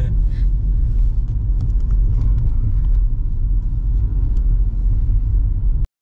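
Steady low rumble of a Ford EcoSport driving on the road, heard from inside the cabin. It drops out abruptly for a moment near the end.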